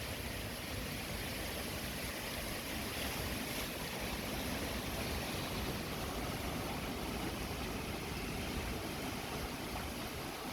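Strong wind blowing steadily: a continuous rushing noise with low rumbling buffets of wind on the microphone.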